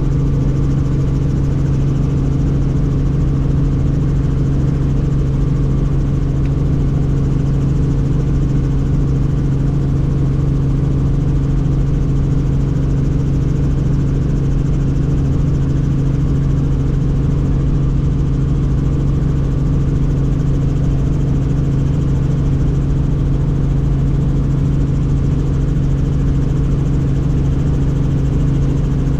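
Helicopter in steady flight: a loud, unchanging drone of rotor and engine, with a steady low hum that does not rise or fall.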